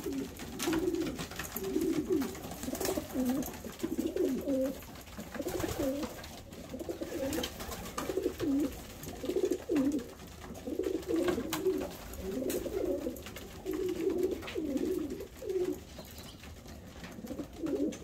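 Young racing pigeons cooing, one low, wavering coo after another with hardly a break, together with a few light clicks.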